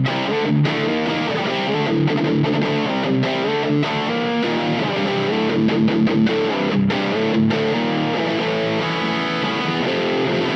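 Electric guitar with P90 pickups played through an LPD Seventy4 Marshall-style overdrive pedal at high gain: distorted chords and riffs with short choked stops, ending on a sustained, ringing chord. The gain is heavy but the notes stay clearly defined.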